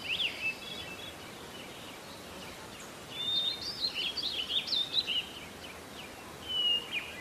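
Small songbirds chirping and warbling over a steady hiss: quick phrases of sliding high notes at the start, a longer burst from about three to five seconds in, and another near the end.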